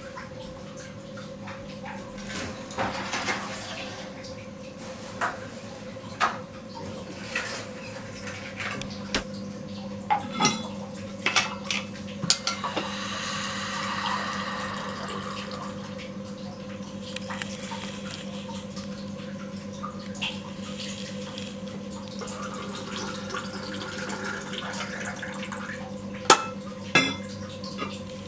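Kitchen dishware at a sink: a metal tumbler and other utensils clinking and being set down, with water pouring for a couple of seconds about halfway through. A steady low hum runs underneath.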